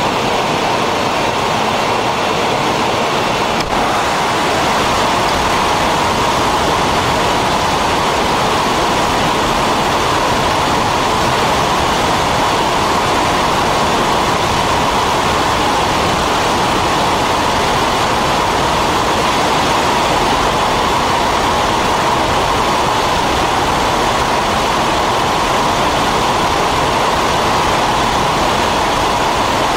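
Steady, loud rush of airflow and engine noise inside a B-52 Stratofortress's bomb bay in flight, with the bay doors open.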